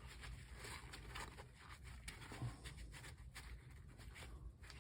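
Faint, irregular rubbing and rustling of a cloth towel wiping carb cleaner off an idle air control valve.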